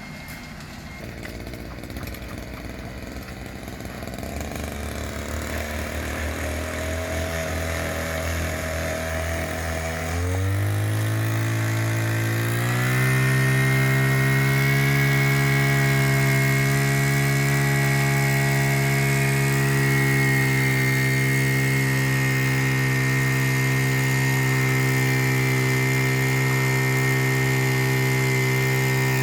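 An engine on concrete-paving equipment speeding up in steps over the first dozen seconds, growing louder, then running steadily at high speed.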